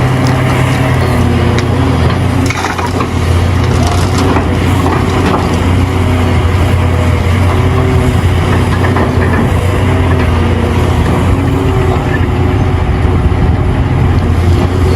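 Hitachi Zaxis 670LC excavator's diesel engine running steadily under load while the bucket digs, with rock and dirt crunching and clattering, most in the first few seconds.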